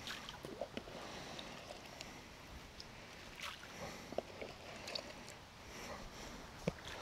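Faint splashing and lapping of water, with scattered small clicks and taps.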